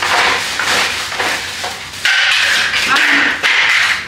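Plastic parts of a boxed adjustable potty ladder knocking and clattering as it is unpacked, then loud rustling of its packaging starting about two seconds in, with a short break partway through.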